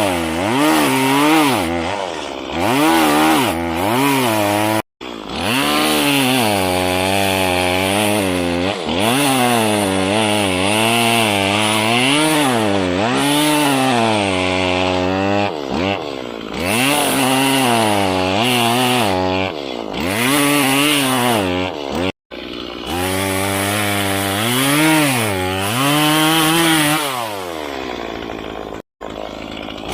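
Chainsaw cutting into a birch tree, its engine pitch rising and falling over and over as it labours in the cut and is eased off. The sound cuts out abruptly for an instant three times.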